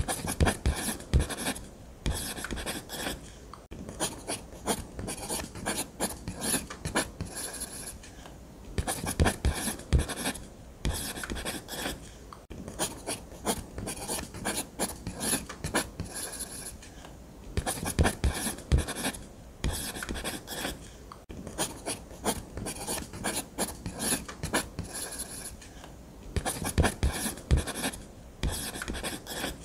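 Ballpoint pen scratching on paper in quick strokes, in bursts of scribbling separated by short pauses.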